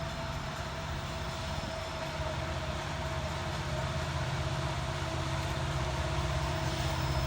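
Diesel locomotives of a freight train, an SD70ACe and a D9-44C, running with a steady low engine drone as they work up a grade. The sound grows slowly louder.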